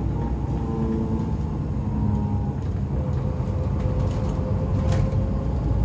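Bus engine and road noise heard inside the cabin of a moving bus: a steady low rumble with faint engine tones slowly shifting in pitch.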